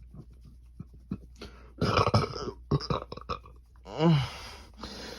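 A person swallowing air and burping on purpose: small mouth clicks and gulps, a loud breathy burst about two seconds in, and a short pitched burp about four seconds in, followed by a breath.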